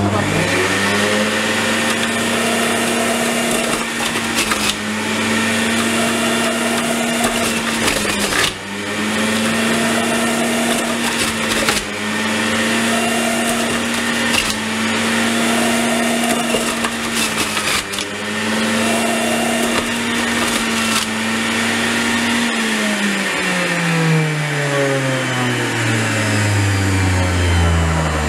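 Centrifugal juicer running on its high speed setting, grating carrots. Its motor whine dips briefly every few seconds as carrots are pressed down the chute. About three-quarters of the way through it is switched off, and the whine falls steadily in pitch as the motor spins down.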